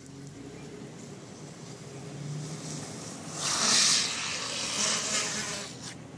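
Longboard wheels rolling fast on asphalt, a steady low rumble. About three and a half seconds in, a loud rushing hiss rises and lasts about two seconds before dropping away.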